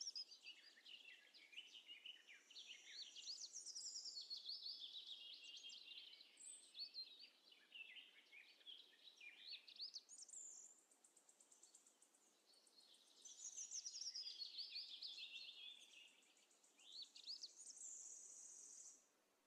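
Faint bird song: a long run of quick rising and falling chirps and fast trills, easing off briefly midway and stopping near the end.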